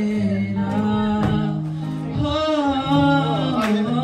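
A song with a sung melody over long held bass notes and occasional drum hits.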